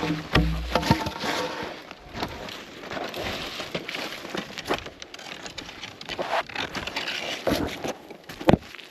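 Irregular sharp snaps and cracks of wood and brush over rustling, with no motor running.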